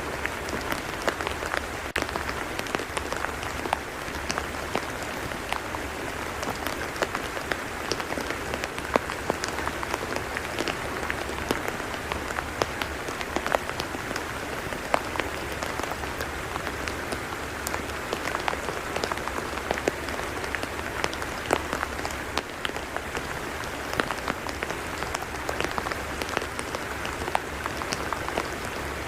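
Steady rain falling on a tidal mudflat: an even hiss with many scattered sharp drop ticks.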